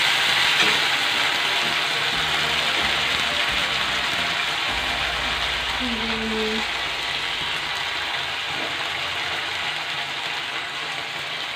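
Onion, ginger-garlic paste and cumin paste sizzling in hot mustard oil in a wok, with a metal spatula scraping and stirring against the pan. The hiss is steady and slowly gets quieter.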